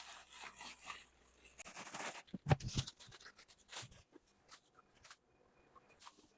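Scattered handling noises: short clicks and knocks, the loudest about two and a half seconds in, with brief rustling in the first two seconds.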